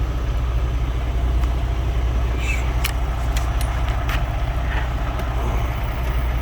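Vehicle engine idling with a steady low hum, heard from inside the vehicle, with a few light clicks in the middle.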